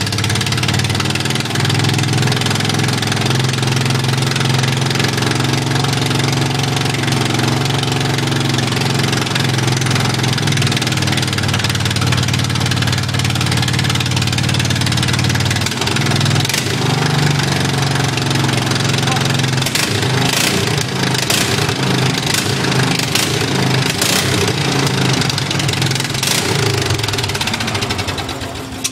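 Briggs & Stratton engine of a home-built racing mower running on its first start, at a loud, steady speed. Several sharp cracks come over the second half, and the engine cuts out just before the end.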